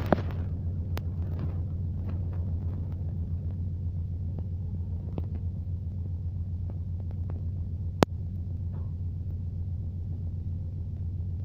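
A ferry's engines running, a steady low rumble through the ship, with a single sharp click about eight seconds in.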